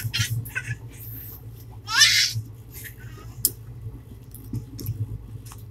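A young child's loud, high-pitched squeal about two seconds in, with a few shorter vocal sounds around it, over the steady low hum of the moving train.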